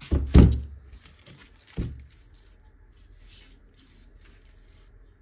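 A short rowan log knocked down twice on a rubber workbench mat, the first and louder thud about half a second in and the second just before two seconds, followed by fainter scraping and rubbing as hands turn it over.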